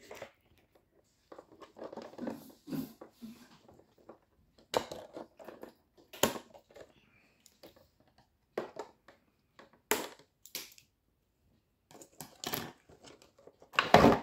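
Scissors snipping the thin ties that hold a plastic toy dinosaur in its cardboard window box, with crinkling and rustling of the packaging. It comes as a string of separate short clicks and rustles with quiet gaps, loudest near the end as the toy is pulled free of the box.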